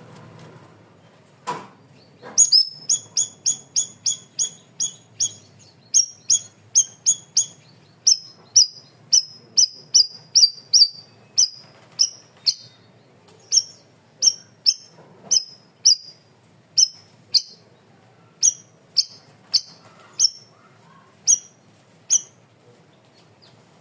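Cucak rawis (bayeman) songbird repeating one short, sharp, high chirp, each note dropping slightly in pitch. The chirps come in a long run, about three a second at first, then slowing to about two a second. A single low knock comes just before the run begins.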